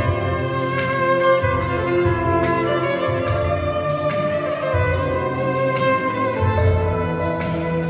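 A violin, played with a bow, carries a slow melody of held notes over an accompaniment with a low bass line.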